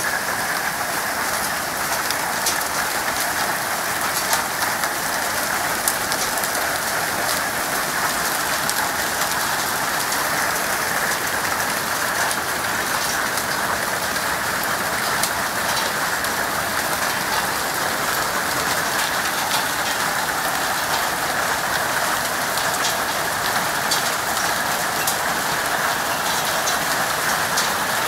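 Large hailstones and heavy rain falling and striking surfaces: a dense, steady hiss with many sharp ticks from individual stones hitting.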